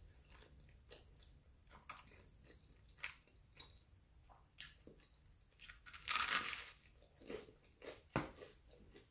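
A person chewing a mouthful of spaghetti close to the microphone: quiet, wet mouth clicks and smacks, with a louder crunchy stretch about six seconds in.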